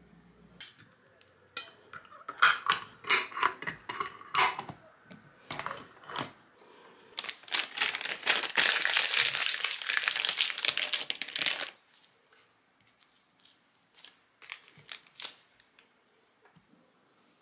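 A glass preserving jar closed by hand: its metal screw lid clicks and rattles as it is put on and twisted shut, then a checked cloth cover crinkles and rustles for about four seconds as it is pressed over the lid, with a few light taps near the end.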